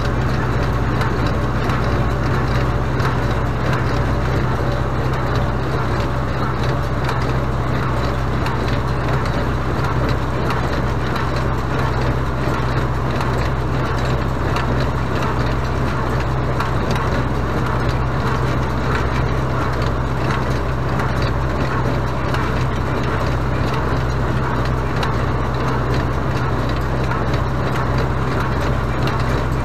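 Renault 656 tractor's engine running steadily under load, driving a Renault 100 small square baler through its PTO shaft. The baler is picking up and packing clover hay, and the steady low hum runs under the clatter and crunch of the machine.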